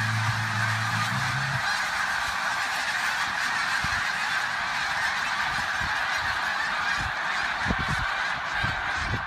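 A huge flock of snow geese honking overhead: thousands of overlapping calls blending into a dense, unbroken clamor.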